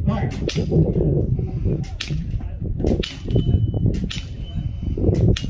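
Air rifles firing a rapid string of shots in a speed-shooting round: about ten sharp cracks, mostly in close pairs roughly a second apart, with a brief faint ringing after a couple of them as pellets strike steel knockdown targets.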